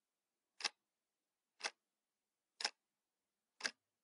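Steady ticking: four short, sharp ticks evenly spaced one second apart, with silence between them.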